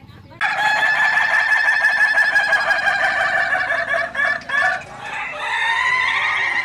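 Rooster crowing: a long crow begins about half a second in, and a second crow follows near the end.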